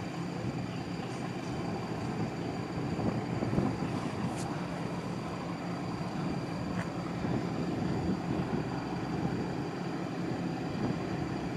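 Steady low rumble of distant engines across the harbour, even and unbroken, with faint steady high-pitched tones above it.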